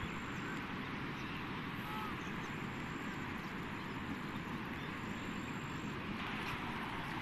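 Steady rush of muddy floodwater running fast.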